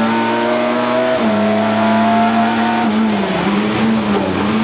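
Rally car engine at speed, heard from inside the cockpit. The engine note dips briefly about a second in, climbs steadily, then falls and wavers from about three seconds in.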